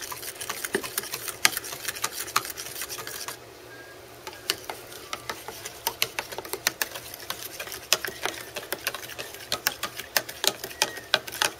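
A spoon stirring chocolate milk quickly in a plastic cup, clinking rapidly against the cup's sides, with a short pause a few seconds in.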